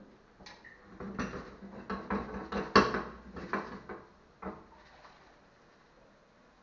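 Utensil and frying pan clattering on a gas stove: a run of knocks and scrapes, the loudest about three seconds in, dying away after about four and a half seconds.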